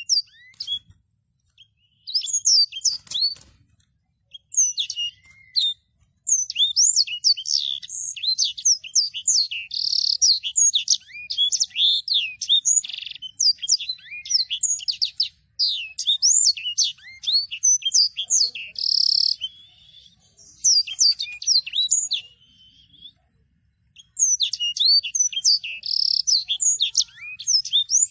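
A songbird kept as a 'sanger' singing in long, fast rolling runs of quick up-and-down whistled notes, broken by a few short pauses.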